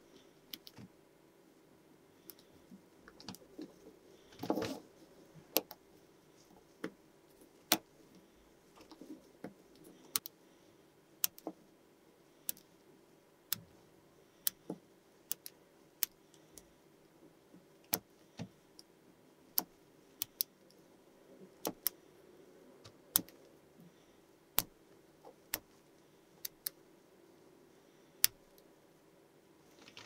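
Small magnetic balls snapping onto one another as they are placed: sharp, separate clicks at irregular spacing, roughly one a second, with a short rattle of several clicks about four seconds in, over a faint steady hum.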